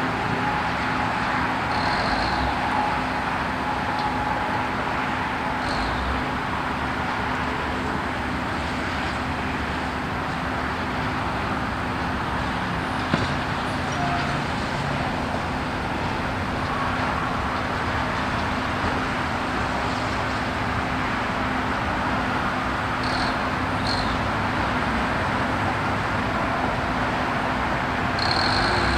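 Steady outdoor rumble of road traffic and a running diesel engine, with a constant low hum. A single sharp knock sounds about halfway through.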